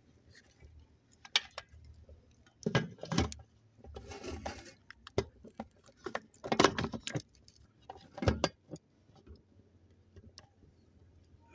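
A string of separate metallic clinks and knocks from an aluminium pressure cooker's lid being fitted and closed, with a short scrape of metal near the middle.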